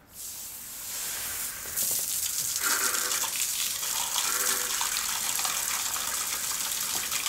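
Water spraying from a hose onto floor tiles: a steady hiss that starts softly and grows stronger about two seconds in.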